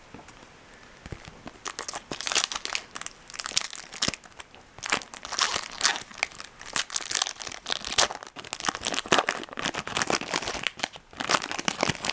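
Foil trading-card pack wrapper being crinkled and torn open by hand, in repeated crackling bursts.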